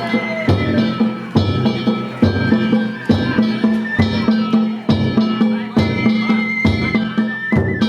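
Danjiri festival music (narimono): a taiko drum and hand gongs struck together about once a second, with the gongs ringing on between strikes and a bamboo flute holding a high melody over them.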